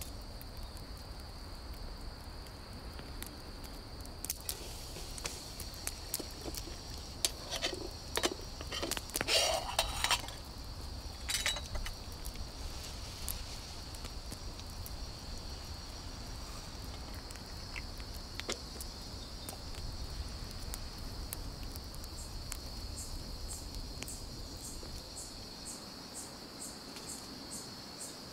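Forest insects chirring in a steady high-pitched drone. A cluster of small clicks and knocks comes about a third of the way in, and a faster, higher ticking joins near the end.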